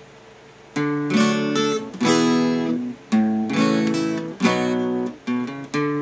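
Cutaway acoustic guitar strummed in a rock rhythm. It starts about a second in and comes in bursts of chords with brief stops between them.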